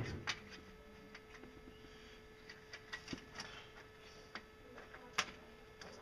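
Scattered light clicks and taps of thin stainless sheet metal being handled and pressed onto the top of a stainless steel stove tube, with a sharper click about five seconds in.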